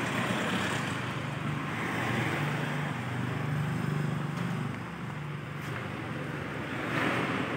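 A vehicle engine running steadily, a low hum under traffic noise.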